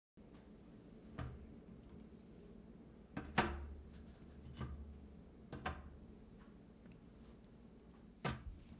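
A handful of light knocks and clicks, the loudest about three and a half seconds in, over a faint low hum.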